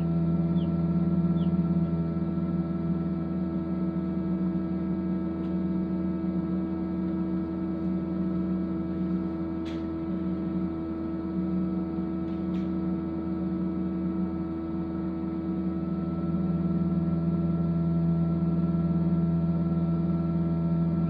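Egg incubator's fan running with a steady electric hum at several fixed pitches. A newly hatched chick gives two faint high peeps near the start.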